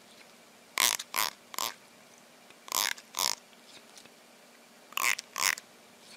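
A fingertip strummed across the teeth of a plastic comb, giving short rasping zips: three in quick succession, then two, then two more. This is the comb sound that sets off a cat's lip-licking, gagging reaction.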